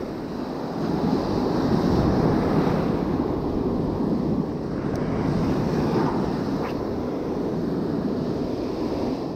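Surf breaking and washing up the sand, with wind buffeting the microphone; the wash swells about a second in and then holds steady.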